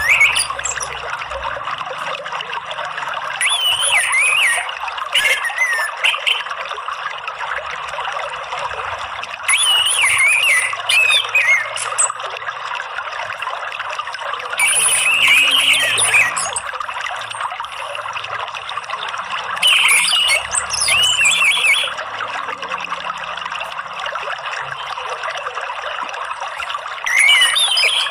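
Orange-headed thrush singing short phrases of quick, up-and-down whistled notes every few seconds over steady trickling water.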